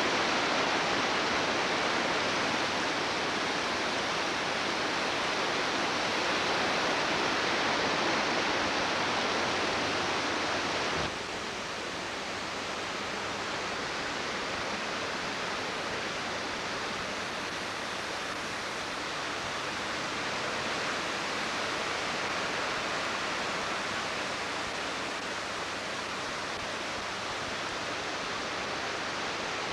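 Flooded Peshastin Creek rushing in a steady, unbroken roar of water. About a third of the way in the sound drops abruptly to a slightly quieter, duller rush.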